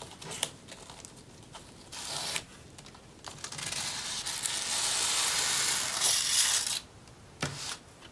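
Clear plastic packaging sleeve crinkling and rustling as a string tie is pulled and slid off it, with a long run of crinkling in the middle. A light knock near the end as the package is set down.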